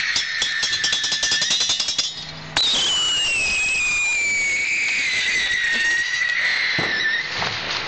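New Year's fireworks: a high whistle over rapid crackling for the first two seconds. About two and a half seconds in, a new whistle starts abruptly and slides slowly down in pitch, dying away near the end.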